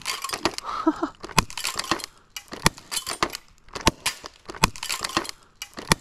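Irregular sharp clicks and clinks, about two to three a second, from carrying and handling a loaded airsoft grenade launcher while walking.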